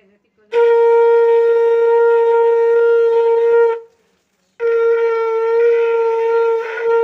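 Conch shell (shankha) blown in two long, steady blasts on one held note, the ritual conch call of a Hindu puja. The first blast lasts about three seconds; the second starts after a short breath about four and a half seconds in.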